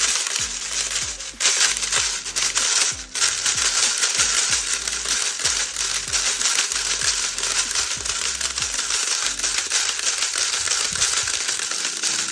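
Airsoft BBs rattling steadily into a 250-round polymer mid-cap magazine as they are fed from an Odin speed loader: a dense, continuous clatter of many tiny plastic pellets, briefly interrupted twice near the start.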